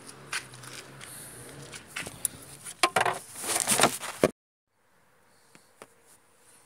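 Rustling and scraping handling noise, with a run of loud scrapes just before it cuts off abruptly about four seconds in; then faint room tone with a couple of light clicks.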